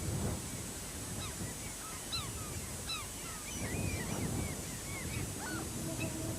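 A flock of birds calling: many short chirping calls, overlapping several to the second, over a low rushing noise.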